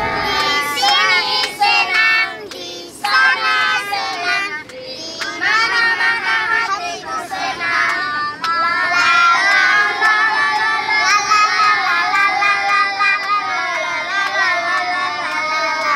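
Several children singing a song together inside a crowded minibus.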